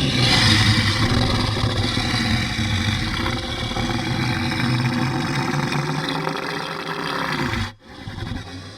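Monster sound effect: a long, rough, rumbling growl that runs about seven and a half seconds, cuts off suddenly, and is followed by a quieter tail near the end.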